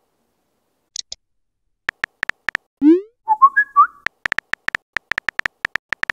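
Texting-app sound effects: a string of short, identical key-tap ticks as a message is typed. About three seconds in comes a rising swoop, then a quick whistled chirp as the message sends. A fast run of key taps follows for the next message.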